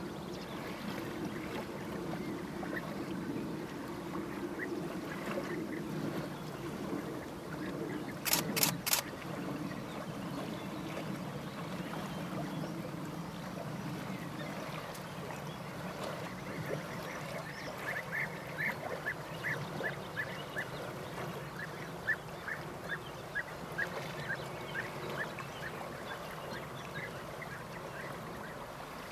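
European bee-eaters calling: a run of short, high calls, two or three a second, from about halfway through to near the end, over a steady low rumble. Three sharp clicks in quick succession about eight seconds in are the loudest sound.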